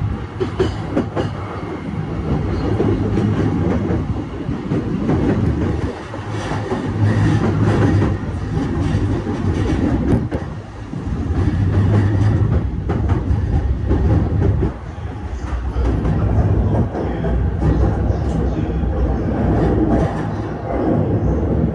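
Running noise inside a JR East E531 series electric train: a steady low rumble with wheels clicking over rail joints and points, as the train runs into a station.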